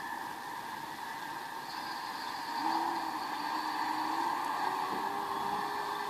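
Steady engine drone, heard through a TV speaker, with a low tone that comes in a few seconds in and steps up slightly in pitch.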